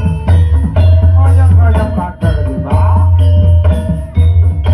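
Loud music with heavy, sustained bass notes, sharp percussion strikes and a melodic line above them.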